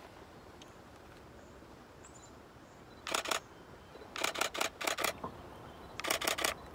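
Canon 77D DSLR shutter firing in four short bursts of rapid clicks, continuous shooting, the first about three seconds in.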